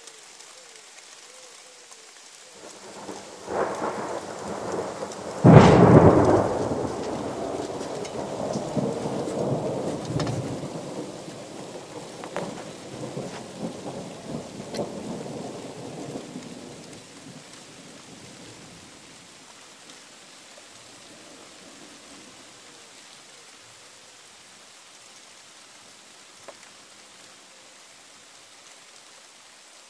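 Thunder close by: a rumble builds about three seconds in, then a sharp crack, the loudest sound, rolls on into a long rumble that fades away over the next ten seconds or so. Steady rain hisses underneath.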